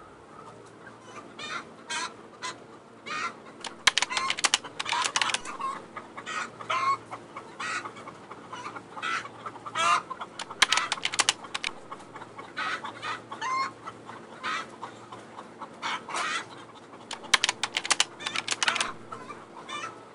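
A house full of caged brown laying hens clucking and squawking, many short calls overlapping throughout, over a low steady hum.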